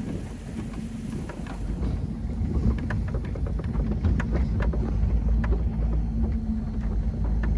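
International Harvester 1486 tractor's diesel engine running steadily with a low rumble, with scattered rattles and wind buffeting the microphone.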